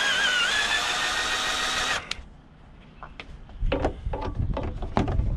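Cordless drill boring through a black plastic panel: its motor whine wavers, then holds steady, and cuts off about two seconds in. A few scattered knocks and clicks follow.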